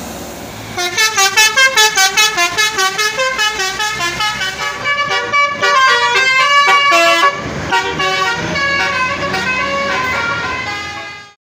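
Indonesian bus's multi-tone 'telolet' air horn playing a quick tune of stepping notes, about four or five a second, starting about a second in and cutting off near the end. A steady engine sound runs before it starts.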